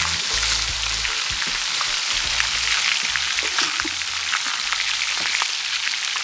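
Seasoned barracuda steaks and Scotch bonnet peppers frying in hot oil in a skillet: a steady sizzling hiss with many small pops and crackles. A low rumble comes and goes underneath.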